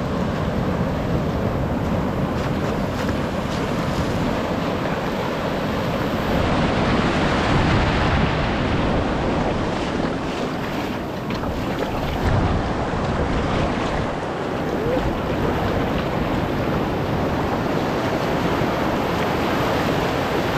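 Ocean surf breaking and washing up over the shallows in a steady rush of foaming water, with wind buffeting the microphone.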